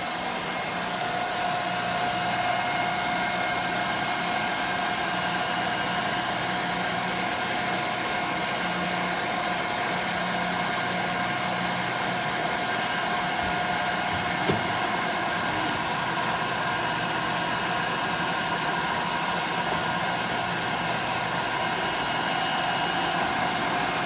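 Studer S20 CNC cylindrical grinder running with its grinding wheel spinning: a steady whine of several held tones over an even hum, with one faint click about fourteen seconds in.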